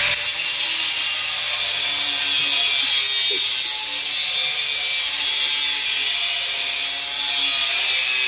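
Angle grinder with a cutting disc slicing through a hardened K720 steel knife blade: a steady high-pitched grinding hiss over the motor's whine, the pitch wavering slightly as the disc bites.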